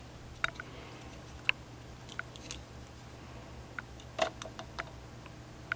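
Quiet room with a low steady hum and scattered faint clicks and taps, a slightly louder tap about four seconds in; handling noise of a hand-held camera, with the motor stopped.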